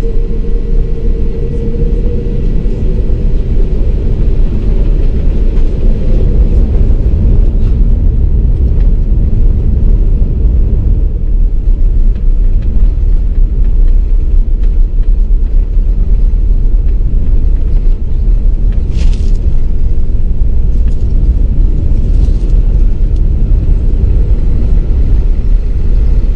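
An Airbus A380-800's four Rolls-Royce Trent 900 engines at take-off thrust, heard from inside the cabin during the take-off roll: a loud, deep, steady rumble. An engine tone fades out over the first couple of seconds, and there is one brief higher hiss about two-thirds of the way through.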